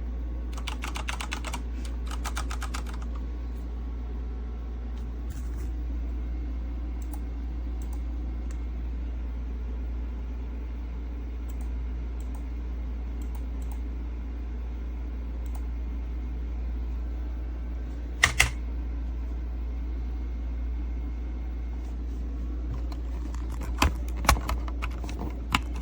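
Typing on a mechanical keyboard: a quick run of keystrokes over the first few seconds, then a few single, louder clicks later on, over a steady low hum.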